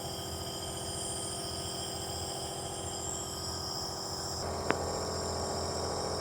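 Steam inhaler running with a steady electric hum and hiss. One sharp click sounds about two-thirds of the way through.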